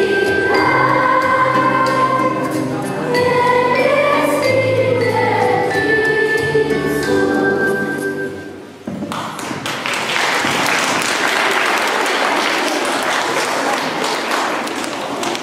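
Children's choir singing the close of a Christmas carol with accompaniment, fading out about eight seconds in; then the audience claps steadily for the rest.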